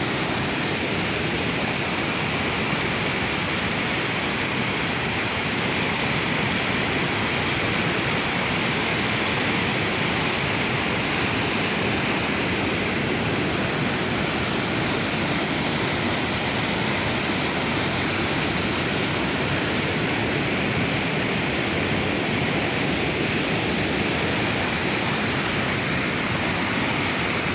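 Muddy floodwater rushing in white-water rapids through a rocky channel below an overflowing reservoir spillway, a steady loud rush of water. The reservoir is spilling over after heavy rain.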